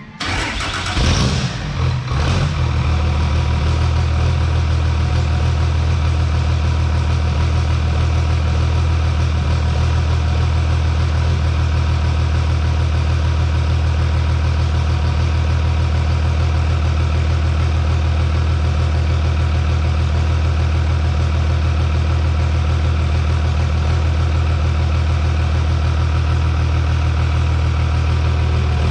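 Cummins inline-six diesel of a drag truck catching with a short noisy burst in the first two seconds, then idling steadily on a stock file set up for its dual injection pumps.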